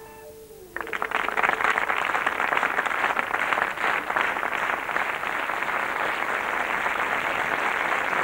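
Audience applauding, breaking out suddenly about a second in as the last guitar note fades.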